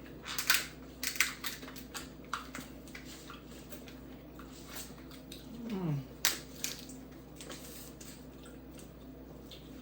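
Boiled crab leg shells being cracked and broken apart by hand while eating: a run of sharp cracks and clicks, with short pauses between them.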